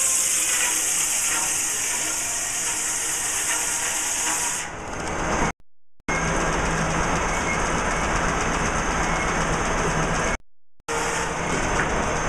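Steam-engine-driven sawmill running: a steady mechanical din, with a loud high hiss for the first four and a half seconds that then fades. The sound drops out briefly twice, about five and a half and ten and a half seconds in.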